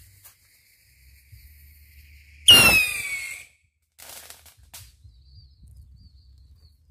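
Stick rocket firework launching: a sudden loud whoosh about two and a half seconds in, carrying a whistle that falls in pitch and fades within about a second as it climbs away. Two faint cracks follow.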